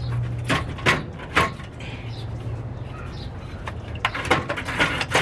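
Radiator and fan parts being handled in a car's engine bay: three sharp knocks in the first second and a half, then a quick run of clicks and scraping knocks about four seconds in, over a steady low hum.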